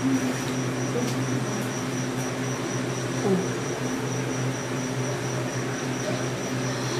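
Steady electrical hum with an even rushing noise and a faint constant high whine, from an electric appliance running in the room.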